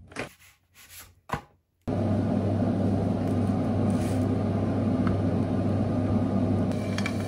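A few rustles of a plastic bag and light taps, then about two seconds in a kitchen range hood extractor fan comes on abruptly and runs with a steady low hum and mains drone.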